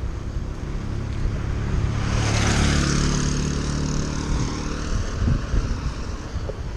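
A motor vehicle passing close by, its engine and tyre noise swelling about two seconds in and fading away again, over steady wind rumble on the microphone.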